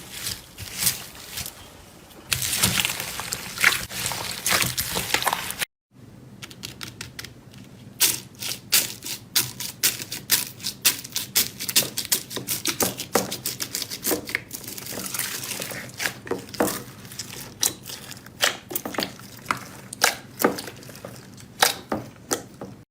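Slime being squeezed and pressed by hand, making rapid crackling clicks and pops. A brief silent cut a little under six seconds in leads to a second stretch of dense clicking and popping.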